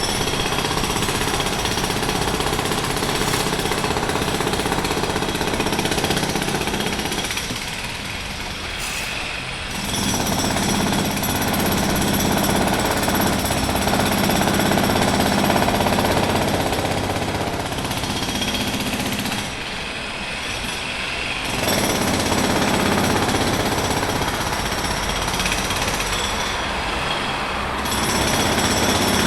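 Jackhammer hammering in long, continuous runs, easing off briefly three times.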